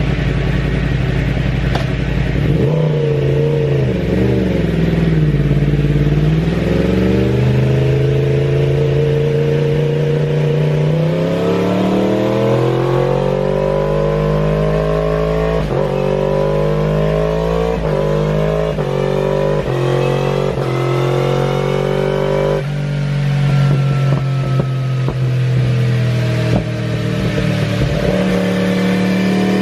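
2015 Yamaha YZF-R1's crossplane inline-four through an Akrapovič exhaust, revving under load on a chassis dynamometer during a power check. The engine pitch wavers a couple of seconds in, then climbs steadily, drops abruptly about three-quarters of the way through and climbs again, with a few sharp clicks along the way.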